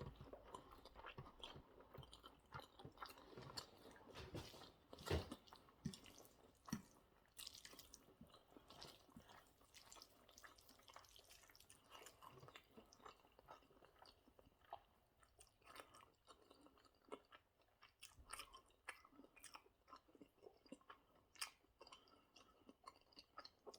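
Faint, close-up chewing of spaghetti bolognese, a string of small wet mouth clicks.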